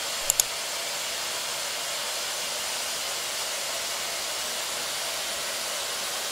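Parkside sliding mitre saw's electric motor running steadily at speed with the blade not yet in the wood, an even whirring hiss. Two sharp clicks about a third of a second in.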